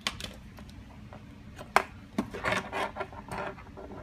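Lightning charging cables being unplugged and handled at a USB tester: a few light clicks, a sharp click a little under two seconds in, then about a second of rubbing and scraping.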